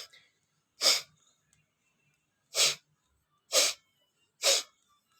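A man forcefully blowing air out through his nose, four sharp blasts about a second apart, to clear the leftover salt water from his nasal passages after a jal neti nasal rinse.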